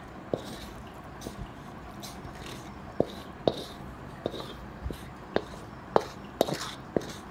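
Metal spatula knocking and scraping against a metal pan as oily stir-fried vegetables are pushed off onto a plate, with wet squishing of the food. About a dozen sharp, irregular clicks, most of them from about three seconds in.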